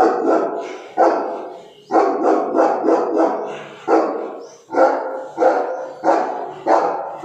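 Cane Corso barking aggressively at a gate, about a dozen loud barks in quick succession, each echoing off the walls of a narrow tiled passage.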